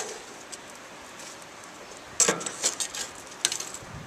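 Metal tongs clinking and scraping against a grill grate while toasted buns are picked up, a quick run of clinks starting about two seconds in and lasting over a second.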